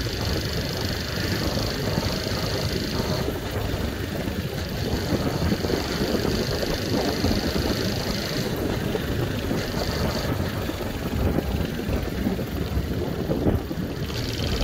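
Motorbike running steadily as it is ridden along a street, its engine sound mixed with road and wind noise.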